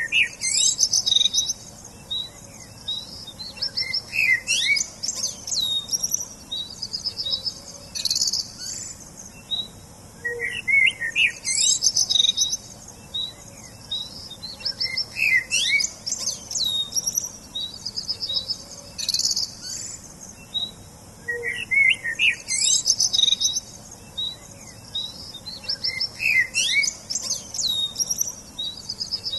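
Songbirds chirping and singing: bursts of high chirps, rapid trills and quick rising whistles over a faint steady hiss. The same stretch of song repeats about every eleven seconds, as a loop.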